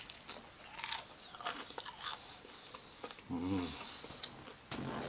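Chewing a mouthful of crispy homemade fried chicken leg: scattered crackling crunches of the coating, with a short hummed murmur about three seconds in.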